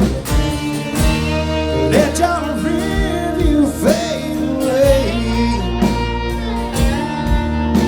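Live band music: a steady bass and drum beat under a lead line of bending, sliding notes, with no words sung.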